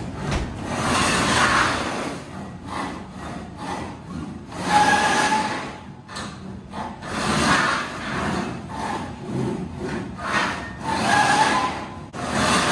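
3015-D CNC fiber laser cutting machine's gantry and cutting head making its first traversing moves after installation, the drives whirring in irregular bursts with brief steady tones about five seconds in and again near the end.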